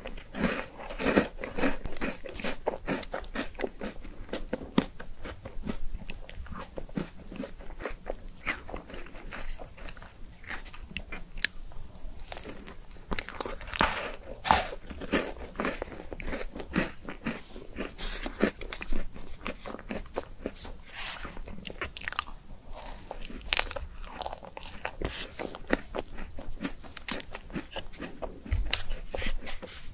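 Close-miked eating of an ice cream cone: crisp, crunchy bites followed by wet chewing, many small crunches in quick succession.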